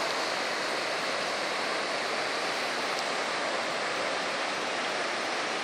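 Niagara River rapids rushing over rocks above the falls: a steady, even rush of white water.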